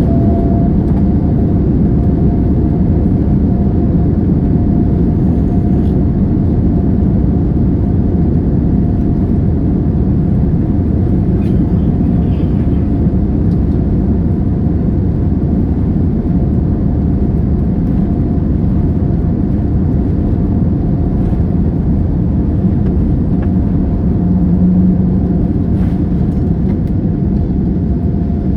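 Loud, steady cabin noise inside a Boeing 787-9 Dreamliner: a low roar from its Rolls-Royce Trent 1000 engines and airflow, with a faint steady whine above it.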